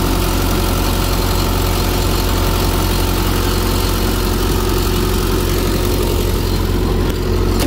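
Small diesel engine of a Carrier trailer refrigeration unit running steadily at low speed after start-up, as it does until the engine warms up. It runs evenly and healthily, with no sign of trouble.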